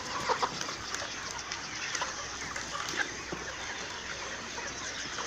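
A flock of 14-week-old pullets calling over one another, a steady chatter of many birds with no single call standing out.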